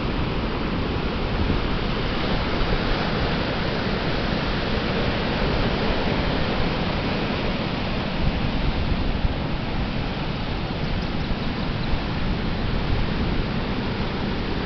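Ocean surf washing onto a beach: a steady, even rush of breaking-wave noise with no distinct single crashes.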